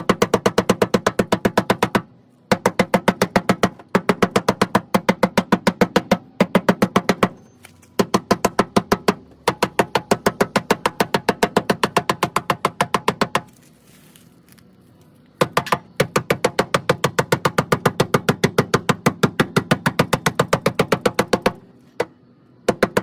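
Ball peen hammer striking the inside of a car's rear fender lip in rapid runs of about six blows a second, each ringing briefly, with short pauses between runs. This is the fender being hammered flat (a home-made fender roll) so the wider tyres stop rubbing.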